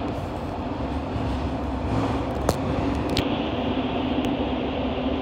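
Fukuoka City Subway 1000-series train running through a tunnel, heard from inside the car: a steady rumble of wheels on rail with a constant low hum. Two sharp clicks come about halfway through.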